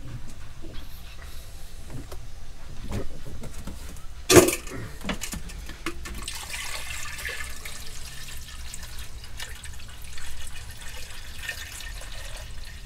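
Hands and a tool working loose a hose fitting on a boat engine: scattered small metallic clicks, one sharp knock about four seconds in, and a soft hiss through the middle.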